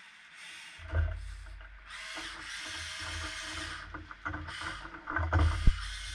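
Electric motors and metal gearboxes of a Huina 1580 metal RC excavator whirring in bursts as it swings, moves its arm and drives on its tracks, with clicks and a sharp knock near the end.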